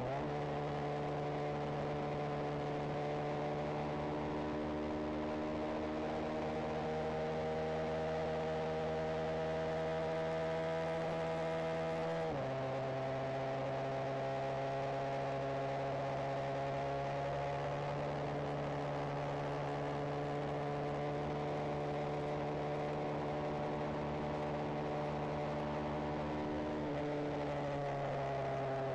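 Benelli TNT 125's single-cylinder four-stroke engine and exhaust running at steady throttle while riding. The pitch slowly rises as the bike pulls through a gear, then drops sharply about twelve seconds in and again near the end as the rider shifts up.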